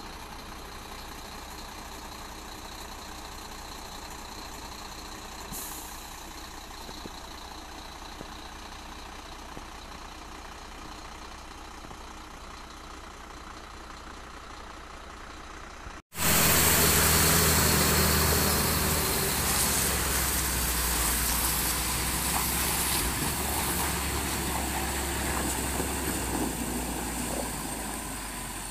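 A steady, fairly quiet vehicle engine hum, then, after an abrupt cut about halfway through, the much louder diesel engine of a loaded dump truck running as it drives along a rough quarry road, easing off gradually near the end.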